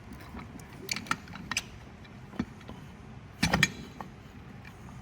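Scattered metallic clinks and knocks from brake caliper parts and tools being handled, with a louder cluster of clanks about three and a half seconds in.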